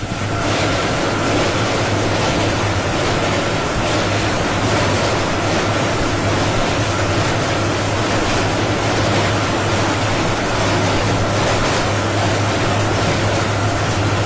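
Steady rushing noise of a train running at speed, wheels on rails and wind, with a low steady hum underneath.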